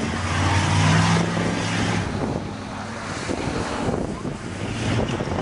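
Pickup truck engine revving, stuck in deep mud: held at high revs for about two seconds, then easing off, with wind on the microphone.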